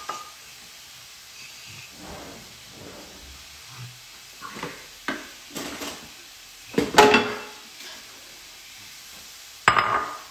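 A toddler washing dishes by hand: scattered clinks and knocks of dishes and a utensil over a steady hiss, the loudest about seven seconds in and another near the end.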